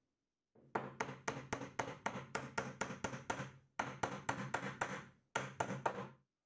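Mallet tapping wooden dowel pins down into holes in a plywood block, quick knocks about four a second in three runs with short pauses between.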